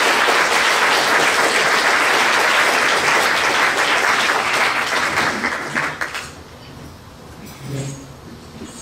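Audience applauding to welcome a speaker to the podium; the clapping is steady and dense, then dies away about six seconds in.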